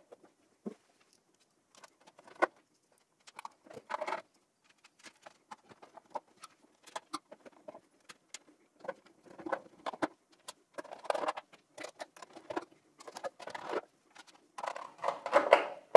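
Hands fitting a motherboard into an HP ProLiant ML330 G6 server's sheet-metal case: scattered light clicks, taps and scrapes of metal and plastic parts in irregular clusters, with one sharper click about two and a half seconds in.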